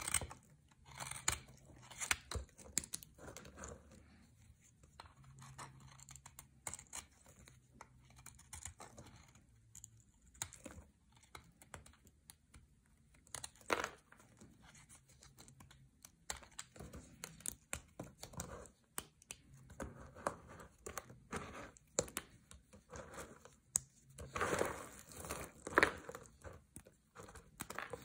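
Dry bar soap being shaved with a knife and crumbled between fingers, giving scattered sharp crackles and snaps. Near the end the crunching grows denser as a hand presses into a pile of soap chips.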